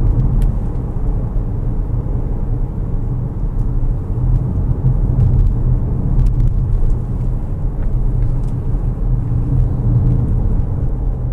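2018 Volkswagen Tiguan on the move: a steady low rumble of tyres on the road and wind, with a few faint ticks.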